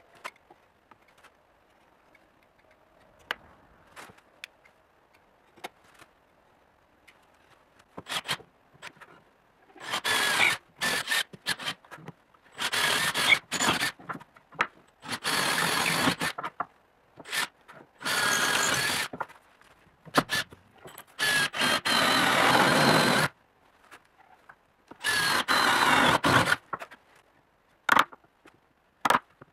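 Electric drill boring holes into a hardwood board, in about six runs of one to three seconds each with a steady whine, wasting out a mortise for a bowtie key. Before the drilling, faint scratching and a few light clicks.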